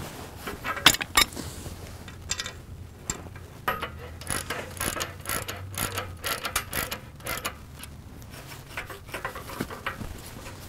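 Pipe wrench working threaded steel pipe fittings on the mill bed, giving a run of irregular metal clicks and clanks.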